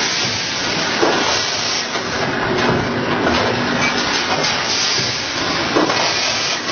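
Automatic rotary powder pouch-packing machine running: a steady loud hiss with a few short knocks from the indexing mechanism.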